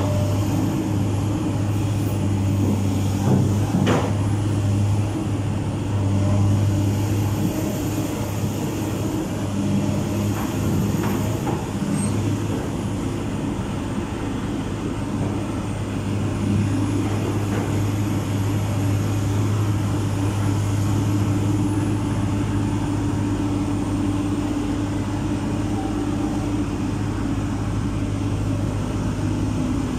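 Komatsu PC200 hydraulic excavator's diesel engine running steadily under load as it digs and swings, with a sharp knock about four seconds in and a few lighter knocks later on. A faint high whine rises and falls over it.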